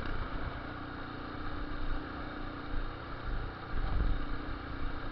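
Fuel-injected Yamaha Lander 250 single-cylinder motorcycle running through a ProTork 788 aftermarket exhaust while riding, with a louder low rumble about four seconds in.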